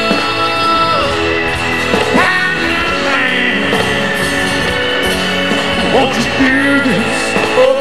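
Live country-rock band performance: a male lead singer singing over strummed acoustic guitar and drums.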